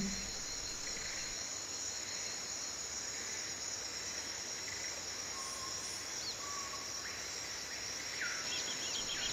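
Steady high-pitched chorus of insects, with a few faint short chirps near the end.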